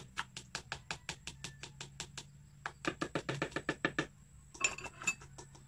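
Metal spoon tapping and scraping against a plastic measuring cup over a mixing bowl to get out the last of the melted butter: a quick run of light clicks, about five a second, with a short ringing clink near the end.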